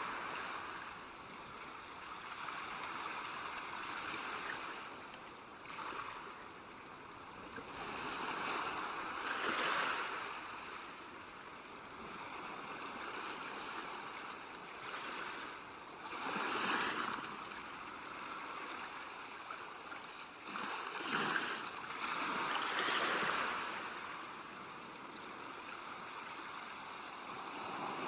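Calm sea waves washing onto a shore, each surge swelling and fading again every few seconds.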